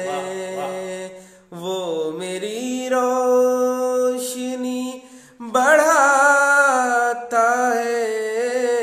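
A man singing a ghazal solo with no accompaniment, drawing the words out into long held notes with wavering ornaments, in three phrases broken by short breaths about one and a half and five and a half seconds in.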